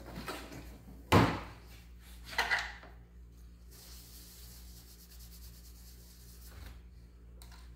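A rag dampened with alcohol is wiped over the plastic case of an RC receiver to clean grease off it: a soft, steady rubbing hiss for a few seconds. Before it come two handling noises, a loud knock about a second in and a smaller clatter just over a second later.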